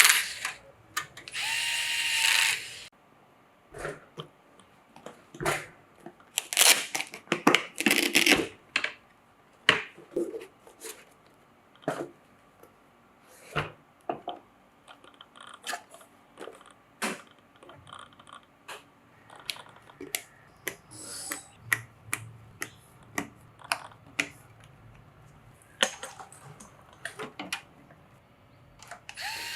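A small electric screwdriver whirs briefly in two short runs at the start, driving screws into PC hardware. After that comes a long stretch of scattered clicks, taps and knocks as computer parts are handled and fitted.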